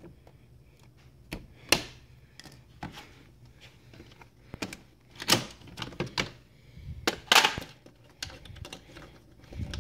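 Irregular clicks and knocks of a hard plastic licence plate holder being handled and fitted. The loudest knocks come about two, five and seven seconds in.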